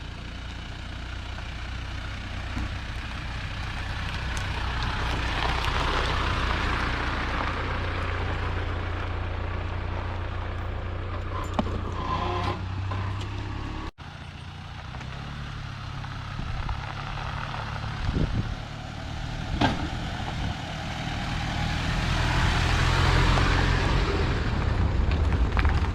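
A moving car's engine and road noise: a steady low rumble with rushing noise that swells and fades twice, about a quarter of the way in and again near the end.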